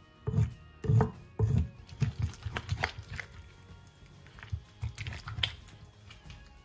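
Wooden pestle (tapoli) working a wet garden-egg, turkey-berry and onion paste against a ridged earthenware grinding bowl (asanka), giving irregular dull knocks and scrapes, the loudest about a second in.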